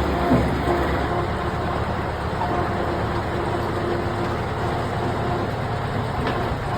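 Heavy engine of road-construction machinery running steadily, with a faint hum that comes and goes and one brief knock near the start.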